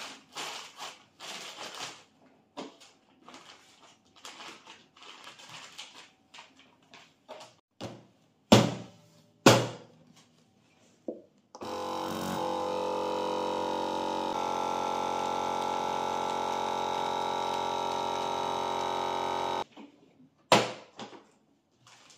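Countertop vacuum sealer in use: plastic bag rustling, then two sharp clicks as the lid is pressed and latched shut. A couple of seconds later its vacuum pump starts and runs with a steady hum for about eight seconds, drawing the air out of the bag, then cuts off suddenly; one more loud click follows near the end.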